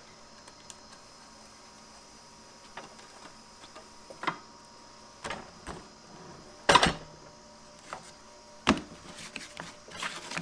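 Occasional knocks and taps from wood and tools being handled at the miter saw, the loudest about seven seconds in; the saw is not running.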